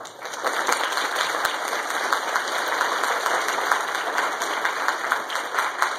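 A church congregation applauding a choir at the end of a song. The clapping starts suddenly and holds steady and dense.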